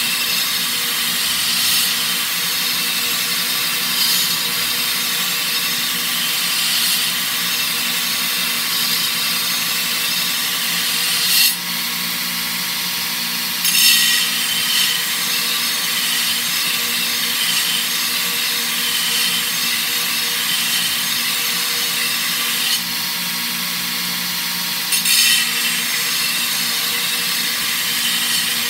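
Shop-made belt sander running steadily with a steel lawnmower blade pressed against the belt to sharpen its edge: a constant motor hum under a gritty grinding hiss that swells in a few short bursts as the blade is worked.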